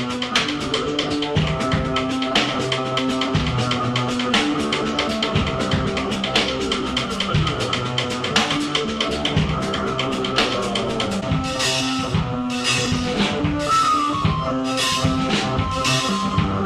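Noise music played live on a Casio keyboard and a drum kit: held electronic keyboard notes over a busy drum beat. Cymbals come in more heavily about twelve seconds in, and a short falling keyboard tone sounds a little later.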